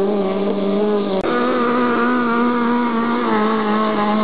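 Racing powerboat engine running at high revs, a steady engine note that briefly drops out about a second in and then carries on a little higher.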